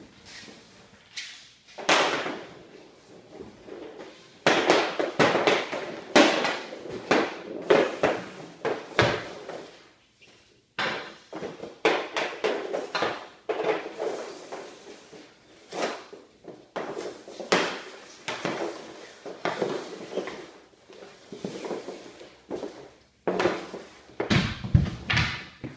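Hockey pucks clattering and scraping over hard plastic floor tiles as they are gathered and pushed along with a hockey stick: many sharp knocks and scrapes in irregular runs. Near the end comes a heavier, deeper thud.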